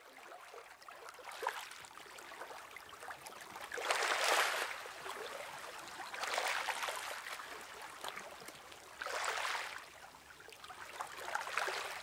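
Small sea waves lapping and washing over a pebble shore. The sound rises from faint at the start, with three louder washes at about four, six and a half and nine seconds.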